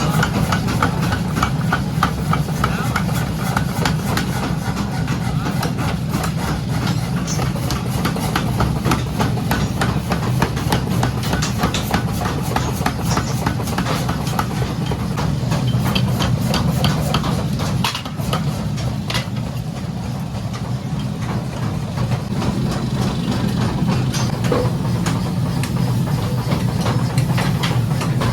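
Forge workshop machinery running with a steady low hum and rapid, regular knocking throughout, easing off briefly about two-thirds of the way in.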